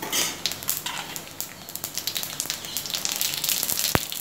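Cumin, mustard and fennel seeds sizzling and crackling in a little hot oil, with many sharp pops as they splutter. The sizzle flares up at the start, and a sharper knock comes near the end.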